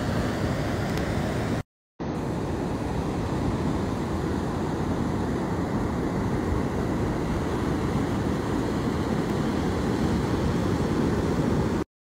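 Sea surf washing onto a pebble beach: a steady rushing noise that drops out briefly just before two seconds in and cuts off just before the end.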